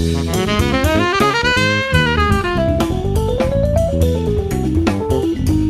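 Recorded small jazz band playing a composed tune: a melody line rises to a peak and falls back over stepping bass notes and drum kit hits.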